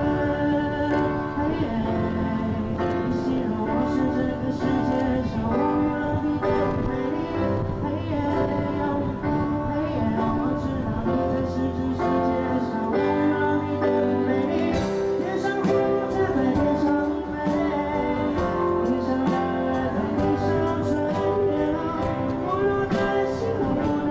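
Live pop band performing a song: keyboard and band accompaniment with singing, played through a concert sound system.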